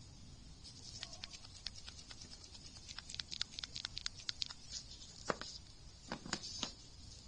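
A PCV valve shaken by hand, its internal plunger rattling in quick, irregular clicks. They come in bursts about a second in, again from about three to four and a half seconds, and once more near the end. A free rattle like this is the usual sign that the valve is not stuck.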